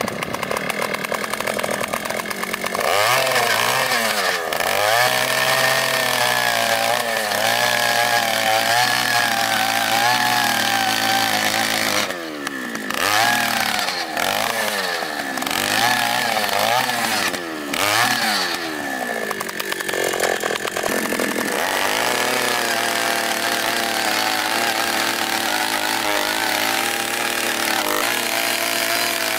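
Oshima 2PS earth auger's 54 cc two-stroke engine running at full throttle as a 150 mm auger bit bores into hard, stony ground. The engine revs up about three seconds in. Through the middle its note repeatedly sags under load and recovers as the bit bites, then it holds steady near the end.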